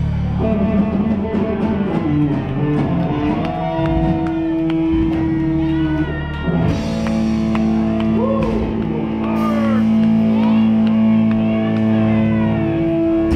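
Live rock band playing, with electric guitar and drum kit, moving into long held notes about halfway through.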